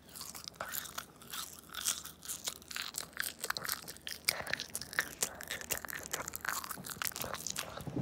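Candy crunched and chewed between the teeth right at the microphone: a quick, irregular run of crisp crunches.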